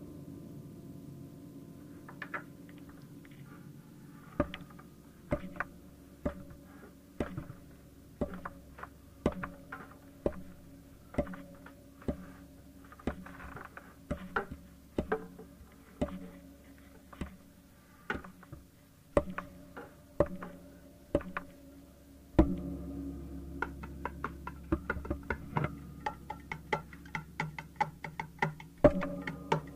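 Instrumental music: sharp percussive strikes about once a second over a low sustained drone. About 22 s in, a louder low layer comes in, and near the end the strikes quicken to several a second.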